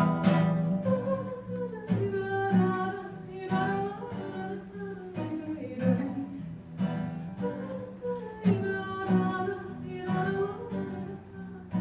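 Acoustic guitar strummed in a steady rhythm, with a woman's voice singing long wordless notes over it.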